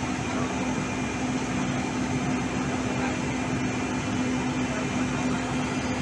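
Heavy diesel engine running steadily, a constant low hum with no change in pitch.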